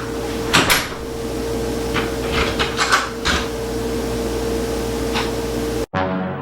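A few short knocks and clatters over a steady hum with a constant tone. Near the end the sound cuts off abruptly and music starts.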